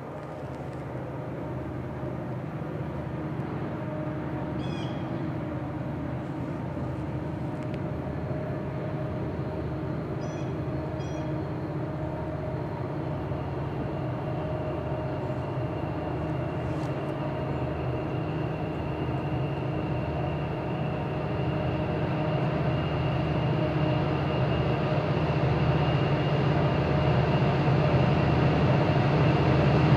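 CSX EMD SD70MAC diesel-electric locomotive and a second unit approaching at the head of an empty coal train: a steady diesel engine drone that grows louder as the train nears, with a thin high whine joining about halfway.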